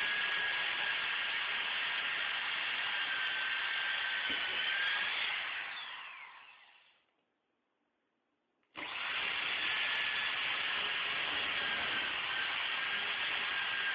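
Electric drill with a 3/16-inch bit boring into old hardwood flooring, which is tough to drill. The drill runs steadily, then winds down with a falling whine and stops about six seconds in. After a brief pause it starts again abruptly and keeps drilling.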